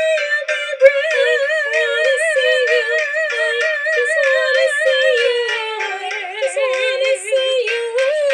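Music: a singing voice holding long, wordless notes with a strong vibrato, sliding down to lower notes a little past halfway, over a rhythmic accompaniment.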